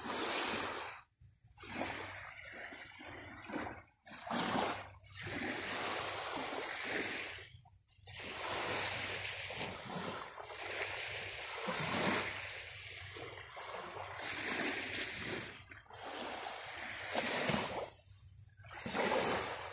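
Small waves lapping and washing up a sandy shore, in surges of a second or few, with a few abrupt short breaks.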